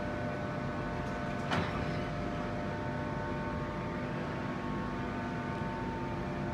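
Class 91 electric locomotive whining steadily, several held tones over a low rumble, with one sharp knock about one and a half seconds in.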